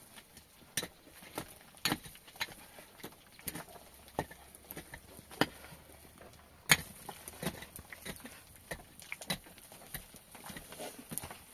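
A series of irregular sharp knocks and clicks, the loudest about two-thirds of the way through.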